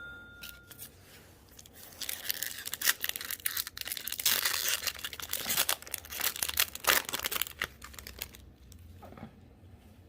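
A foil booster-pack wrapper being torn open and crinkled by hand, a dense crackling that starts about two seconds in and fades out near the end.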